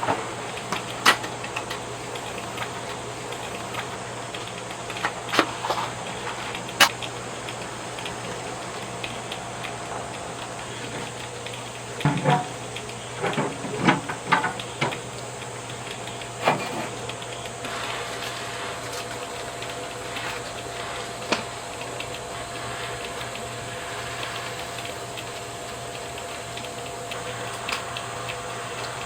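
Steady hum of a camping air conditioner under a constant hiss, with scattered clicks and knocks, several of them close together about halfway through.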